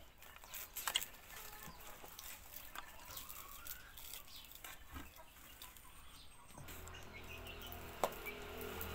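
Dry broom-grass bristles and a plastic binding strip rustling and crinkling as a small broom is wrapped and tied by hand, with a couple of sharp clicks about a second in. About two-thirds of the way through, steady low background tones come in and grow.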